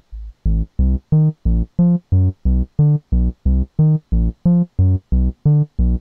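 Software modular synthesizer (VCV Rack oscillator through envelope and filter) playing a step-sequenced line of short pitched notes, about three a second, changing pitch. The note length and brightness vary from step to step as the patch sequencer reroutes the sequencer's outputs to the envelope release and the filter cutoff, with the notes turning brighter about a second in.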